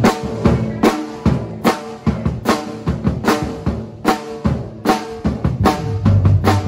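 Live acoustic drum kit playing a steady intro beat, kick, snare and toms at about two and a half hits a second. A low, sustained bass note comes in near the end.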